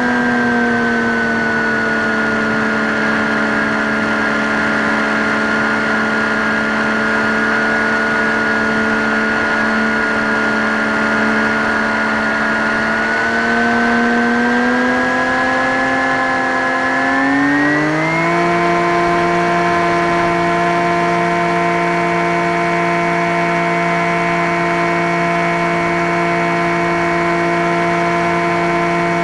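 Skywalker X5 flying wing's electric motor and pusher propeller running steadily in flight with a whine of several tones. About halfway through the motor speeds up over a few seconds, its pitch climbing, then holds steady at the higher note.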